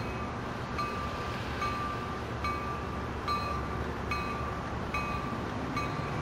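Railroad grade-crossing warning bell ringing at an even pace, a little more than one stroke a second, as a train approaches. Under it is a low steady rumble.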